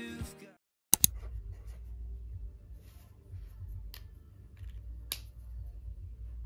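Background music fading out, then a sharp double click followed by quiet room tone with a low hum and a few faint clicks and taps.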